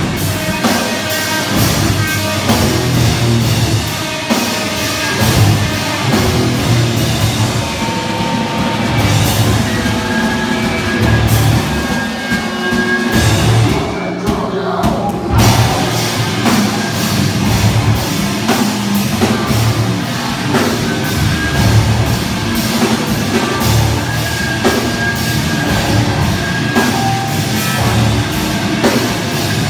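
A live heavy rock band playing loud, with electric guitar, a drum kit and vocals. About halfway through, the cymbals drop out for a second before the full band comes back in.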